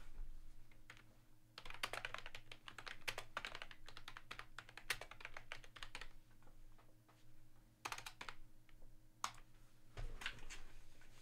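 Computer keyboard being typed on in quick runs of keystrokes, with short pauses between runs.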